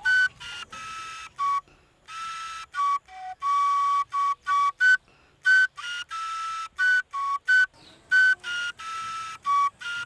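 A small end-blown flute playing a melody of short notes on a few high pitches, with some notes held for about a second and brief gaps between phrases.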